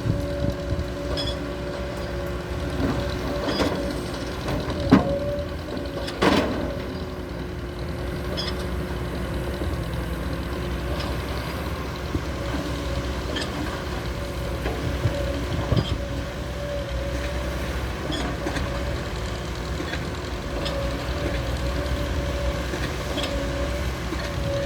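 SANY SY200C excavator running steadily, a low diesel rumble with a steady whine over it. Two sharp knocks stand out about five and six seconds in, with fainter clicks scattered through.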